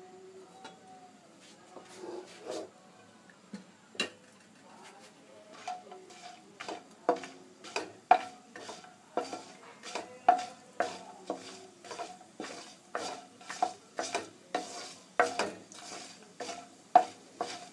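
Wooden spoon stirring pieces of badi (sun-dried lentil dumplings) roasting in a little oil in a nonstick kadai, over a light sizzle. From about six seconds in, the spoon knocks against the pan about twice a second, each knock with a short ring.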